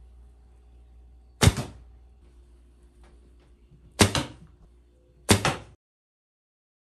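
Three sharp shots from a recurve bow, each a loud snap of the released string followed closely by a second knock: about a second and a half in, at four seconds and a second later. A faint low hum lies underneath, and the sound cuts off abruptly shortly before the end.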